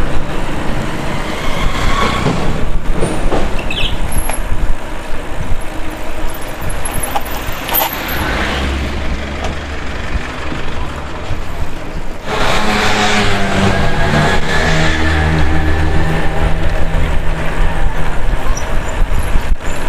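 Rushing wind and road noise on the move from a bicycle, with motor traffic close by. About twelve seconds in, a vehicle engine joins with a steady-pitched drone that holds for several seconds.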